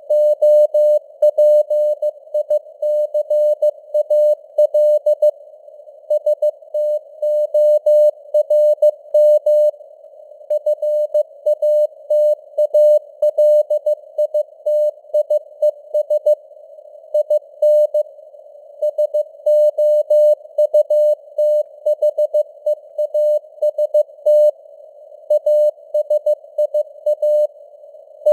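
A Morse code (CW) tone near 600 Hz keyed on and off in dots and dashes at about 15 words per minute, with short pauses between characters and words. Simulated radio receiver noise sits faintly under it.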